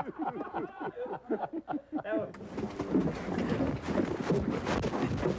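A man's voice briefly, then a steady outdoor rustle with many quick taps: footsteps and gear of armed police officers moving in fast, with wind on the microphone.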